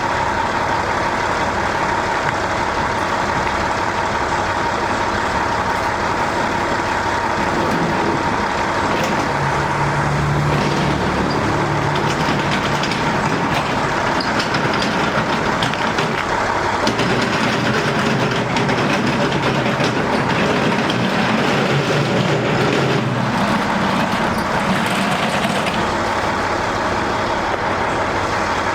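A steady, loud mechanical drone and hiss, like a running engine or motor, with a few faint knocks.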